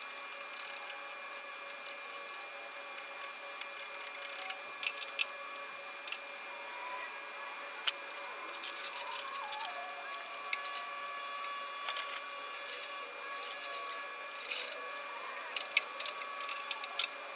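A small hand tool scraping and clicking against the cast-iron exhaust port face of a Ford 8N's four-cylinder engine block in short, irregular bursts, cleaning off rust and old gasket, with the sharpest clicks late on.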